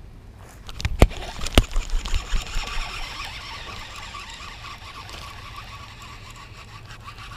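Baitcasting reel being cranked to bring in a hooked bass: a steady whirring with a faint even tone. Two sharp knocks about a second in, with a few smaller knocks just after.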